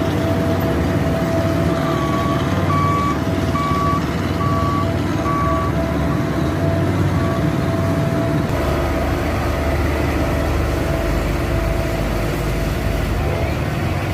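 Tandem asphalt roller's engine running steadily. A reversing alarm beeps about five times in the first half. A deeper low rumble comes in a little past halfway.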